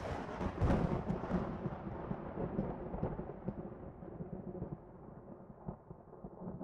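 A deep rumbling sound effect that hits suddenly and slowly fades over several seconds, with crackling on top, accompanying an animated logo.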